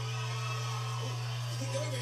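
Television sound recorded off the set's speaker: a steady low hum under faint background music, with voices coming in during the second half.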